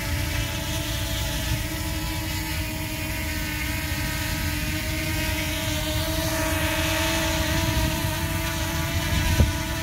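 DJI Mini 2 quadcopter's propellers whirring as it hovers about a metre off the ground close by: a steady buzzing whine whose pitch lifts slightly a few seconds in, with a brief knock near the end.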